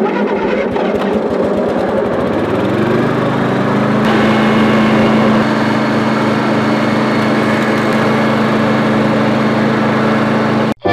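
Riding lawn mower's engine running, rising in pitch over the first few seconds and then holding steady, its cutting blade spinning because an over-tight drive belt turns it even with the blade disengaged. The sound cuts off suddenly near the end.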